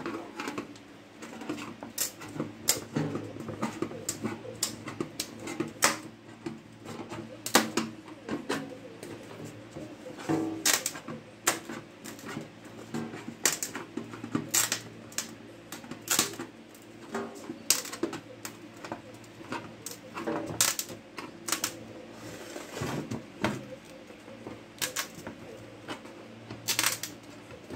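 Irregular metallic clicks and taps, a few a second, from a round metal coin-bank tin as its lid is handled and pried at to get it open.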